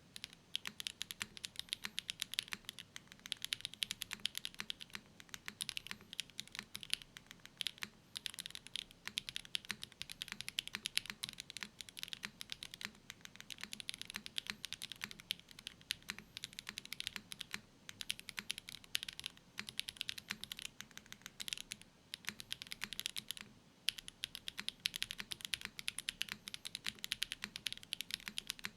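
Fast typing on a custom 60% mechanical keyboard with factory-lubed HMX Xinhai linear switches in an O-ring-mounted aluminium plate with no foam dampening and GMK keycaps: a dense run of key clacks, broken by a few short pauses.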